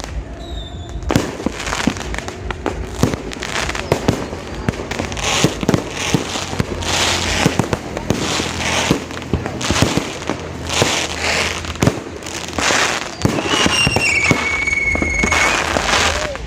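Fireworks going off in rapid, overlapping bangs and crackles, with a high whistle near the end.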